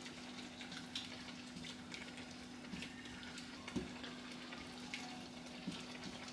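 Wooden spoon stirring peanut butter into a simmering tomato and vegetable sauce in a saucepan: a soft wet churning with a few light knocks of the spoon against the pot, the clearest a little under four seconds in. A steady low hum runs underneath.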